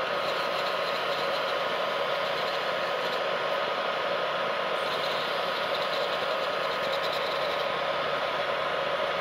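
Paint-spraying equipment running: a steady motor drone with airflow hiss and a constant whine, unchanging throughout.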